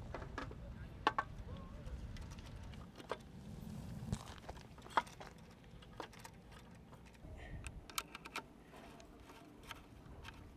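Scattered small metallic clicks and taps of hand tools and parts being handled while assembling a mountain bike, with a low wind rumble on the microphone for the first few seconds.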